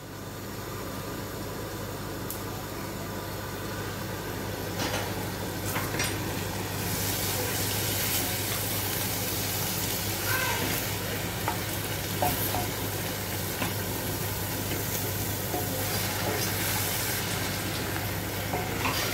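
Rice pillau with tomatoes and green peppers sizzling in a steel pot while it is stirred with a wooden spoon. The sizzling gets louder about seven seconds in, with a few light knocks and scrapes of the spoon against the pot.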